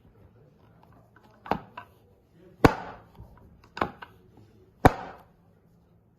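Spring-loaded chiropractic toggle speeder board firing repeatedly: four sharp clacks about a second apart, with a fainter click just after the first.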